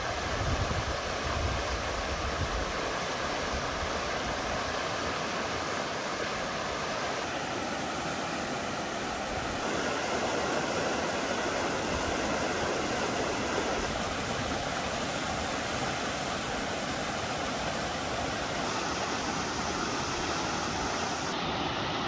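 Steady outdoor forest ambience: an even rushing noise with no distinct events, with low wind rumble on the microphone in the first couple of seconds.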